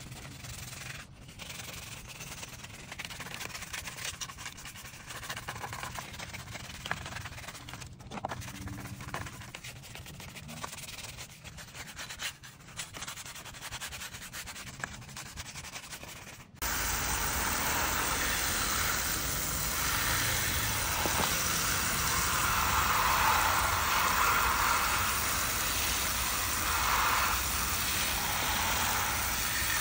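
Small bristle brush scrubbing wet, soapy chrome taillight bezels, a quiet irregular scratching. About halfway through it cuts abruptly to a much louder, steady hiss of a strong water jet from a spray wand rinsing the foam off the bezels and pavement.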